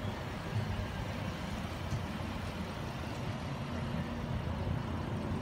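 Range Rover SUV engine idling: a steady low rumble.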